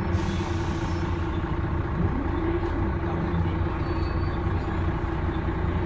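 Volvo B12M bus's 12-litre six-cylinder turbo diesel (Volvo DH12D) and ZF automatic drivetrain running, heard from inside the passenger cabin as a steady rumble with a steady hum, and a whine that rises in pitch about two seconds in.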